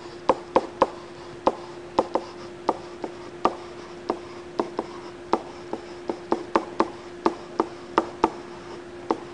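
A pen tip tapping and clicking against the writing surface as words are handwritten: short, irregular clicks, about two or three a second, over a faint steady hum.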